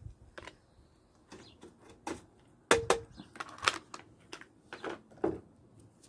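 Two cats eating wet food from a stainless steel bowl: a series of irregular clicks and knocks against the metal, the loudest about three seconds in with a brief ring.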